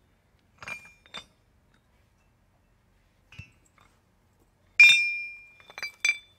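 Rusty iron gears clinking against each other as they are handled and lifted from a pile: two light clinks about a second in, a faint tap, then a loud ringing clank near the five-second mark followed by a few quick clinks.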